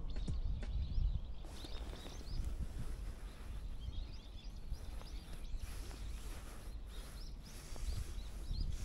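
Outdoor background noise with a low rumble, and small birds chirping briefly now and then.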